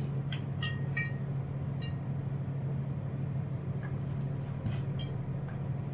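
A few faint light clicks and taps as a steel tumbler is pressed into thick rolled dough on a wooden board to cut out rounds, over a steady low hum.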